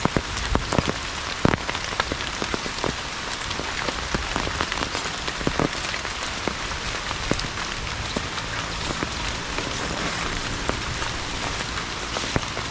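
Heavy rain falling steadily, a dense hiss with scattered close drops ticking sharply on a surface.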